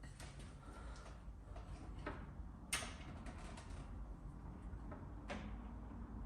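Light knocks and sharp clicks from handling a new clutch cable being worked through a motorcycle's frame past the engine, with the loudest click a little under three seconds in and another about five seconds in, over a low steady hum.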